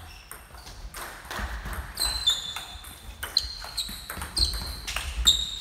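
Table tennis ball struck back and forth in a rally, bats and table giving sharp clicks with a short ringing ping, roughly every half second from about two seconds in.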